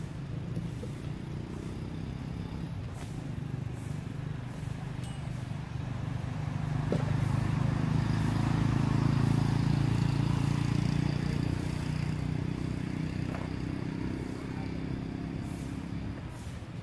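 Low engine hum of a motor vehicle passing by, growing louder from about six seconds in and fading again near the end.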